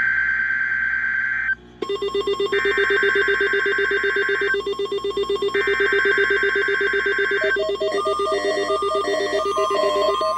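NOAA Weather Radio SAME digital header for a Required Weekly Test: three bursts of screeching data tone, each about two seconds long with short gaps between. From about two seconds in, an electronic alert tone pulses rapidly underneath, changing to a pattern of alternating short beeps near the end.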